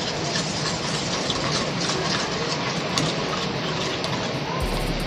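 Stainless steel spoon stirring a thin, gritty dipping sauce in a ceramic bowl: steady wet scraping with repeated light clinks of metal on the bowl.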